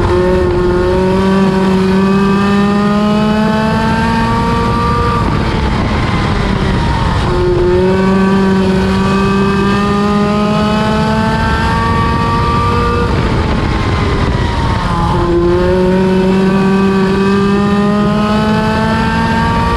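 Midget race car engine at speed on the oval. Its pitch climbs steadily for about six seconds, then drops sharply as it lifts for a corner, about every eight seconds.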